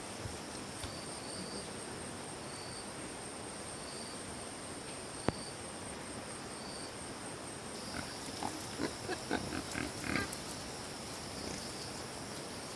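Steady high-pitched insect chirping, with a pulsing second chirp beneath it. A single sharp click comes about five seconds in, and a cluster of short animal calls follows from about eight to ten seconds in.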